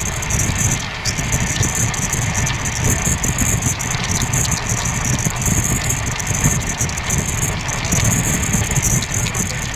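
Amrit Bharat Express train moving, heard from aboard: a steady rumbling noise with many faint clicks.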